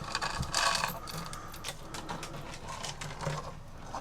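Light, irregular metallic clicks and clinks of a cuckoo clock's weight chain being drawn through the case over its sprocket, busier in the first second and thinning out toward the end.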